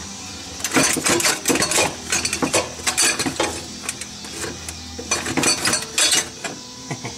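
Irregular metallic clanks and knocks as a metal pipe is wiggled and worked against the surrounding engine parts, trying to free it past the exhaust pipe.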